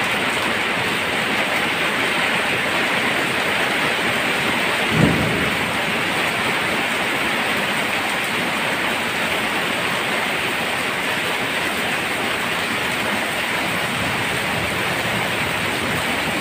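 Heavy rain pouring down with a steady, loud hiss. A short low thump about five seconds in.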